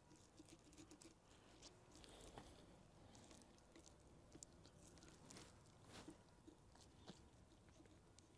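Near silence, with faint, scattered soft clicks and moist rustles of a long knife slicing a pocket into a raw beef rump roast on a wooden cutting board.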